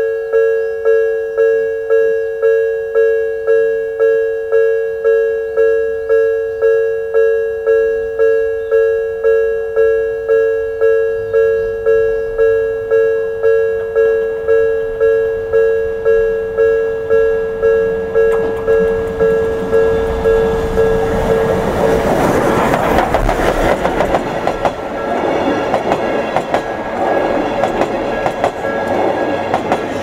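Japanese electronic level-crossing warning bell of the Odakyu type ringing, about three strikes every two seconds. From about two-thirds of the way in, the train draws over the crossing: the C58 steam locomotive with its 12-series coaches, whose running noise and wheel clatter drown the bell.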